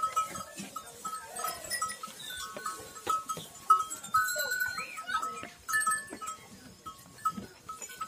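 Goats bleating, over a short high note that repeats irregularly a few times a second, with scattered clicks and knocks.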